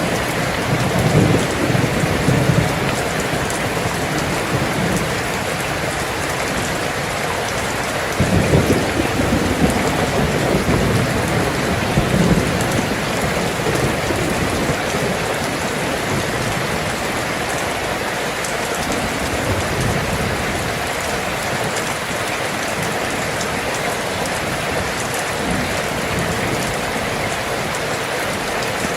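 Steady heavy rain falling, with low rolls of thunder rumbling now and then, the loudest about eight seconds in.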